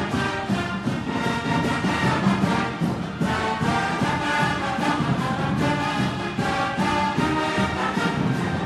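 Instrumental background music, orchestral in style with brass, at a steady level.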